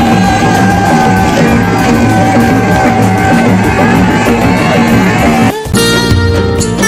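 Live festival sound of a crowd with music and voices, a long note held through it. About five and a half seconds in it cuts sharply to a recorded song with strummed and plucked strings.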